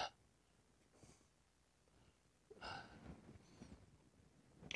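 Near silence, with one faint short sound about two and a half seconds in and a few faint ticks just after.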